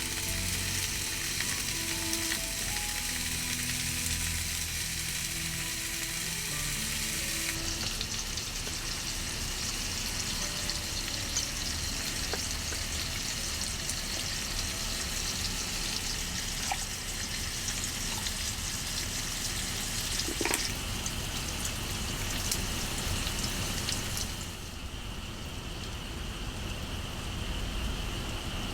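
Meat sizzling in a hot pan, a steady crackling fry that eases off about four seconds before the end. A single sharp tap of utensil or pan comes shortly after the two-thirds mark.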